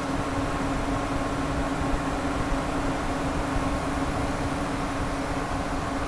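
Eight non-PWM 100 CFM cooling fans of a water cooler running, heard close up inside the case: a steady rush of air with a constant hum.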